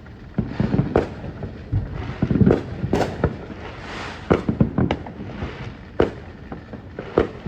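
Consumer fireworks going off: a rapid, irregular string of bangs and pops, several coming close together, with a hiss around the middle.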